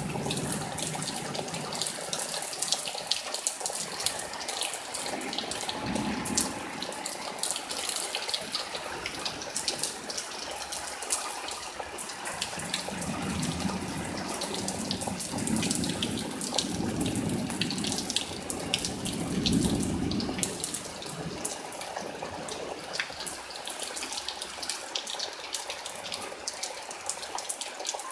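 Heavy rain pouring during a severe thunderstorm, a steady rush with many sharp drop ticks close by. Low rumbling swells come about six seconds in and again from about 13 to 20 seconds in.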